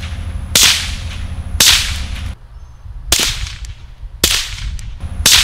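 Five supersonic 5.7x28mm rounds fired from a Ruger-57 pistol through a Dead Air Mask .22 rimfire suppressor, roughly a second apart: each a sharp suppressed crack with a short ringing tail. The listeners judge this can perhaps even hearing safe with supersonic ammunition.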